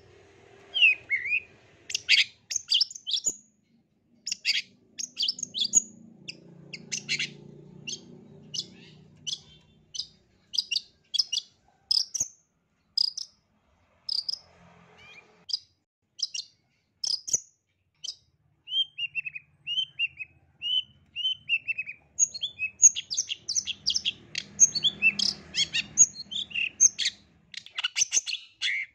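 Long-tailed shrike (cendet) singing: a fast series of sharp, high chattering notes. About two-thirds of the way in comes a string of short downward-slurred whistles, and then the chatter resumes, denser.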